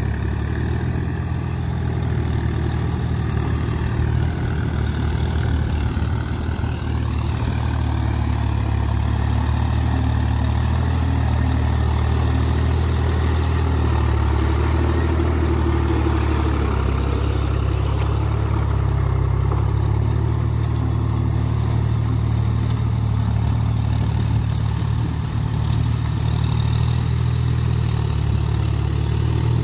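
John Deere tractor's diesel engine running steadily under load as it works a wet paddy field on cage wheels.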